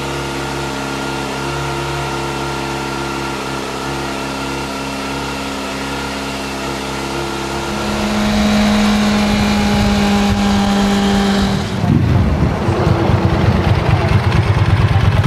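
A steady drone of several held tones that shift, then one louder held tone. About twelve seconds in it cuts to the uneven, pulsing rumble of a motorcycle engine running, from a red Ducati sportbike's twin-cylinder engine.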